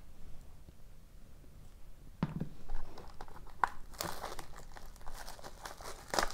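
Clear plastic shrink wrap being peeled and crumpled off a cardboard trading-card box. It crinkles continuously from about four seconds in, after a soft thump and a few clicks from the box being handled.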